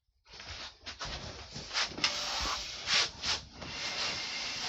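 Rustling and scraping noise, a dense hiss with several sharper scrapes, from someone shifting about on a recliner sofa.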